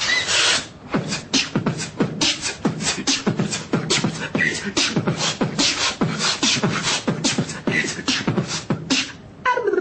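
Beatboxing: a person making quick drum-like kick, snare and hi-hat sounds with the mouth, about four to five hits a second, with a short break near the end.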